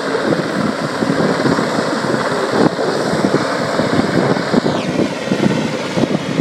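Westland Sea King helicopter hovering, its twin turbines whining high above the dense rotor noise, with wind buffeting the microphone. The turbine whine drops sharply in pitch about five seconds in.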